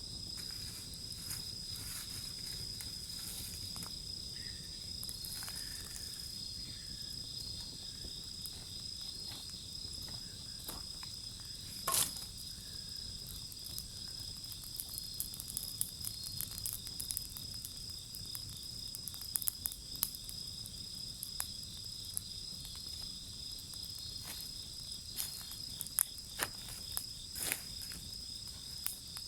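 Wood bonfire crackling with scattered sharp pops, one loud pop about twelve seconds in and many more in the second half, over the steady high chirping of crickets.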